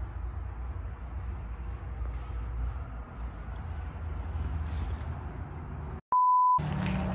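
Low background rumble with a short high chirp about once a second, like a cricket. About six seconds in, it cuts to a brief steady test-tone beep, the tone that goes with TV colour bars.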